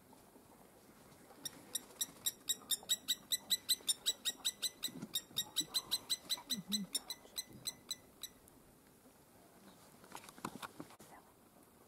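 An animal calling in a rapid series of sharp clicks, about five a second, for several seconds, with a couple of short low grunts partway through.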